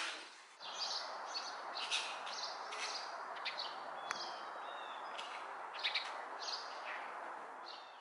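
Small birds chirping in short, high notes again and again over steady outdoor background noise, with a single sharp click a little past four seconds in.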